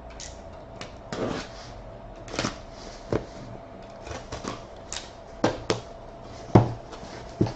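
A cardboard case of hobby card boxes being opened and handled: irregular knocks, taps and short scrapes of cardboard, with the loudest thump about six and a half seconds in, over a faint steady hum.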